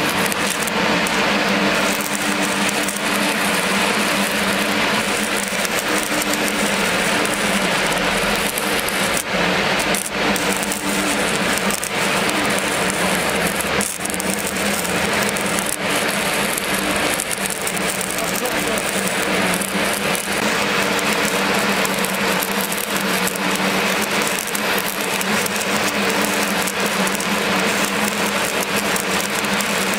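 Electric arc welding: the arc crackles and sizzles steadily and without a break, over a steady low hum.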